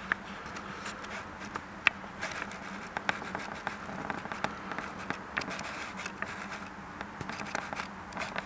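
Handling noise from the camera on its tripod: scattered small clicks and scrapes over a steady low hiss with a faint hum, as the lens focus and framing are adjusted.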